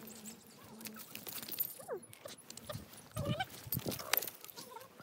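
Goats bleating: a few short, pitched calls in the second half, over light scattered clicks.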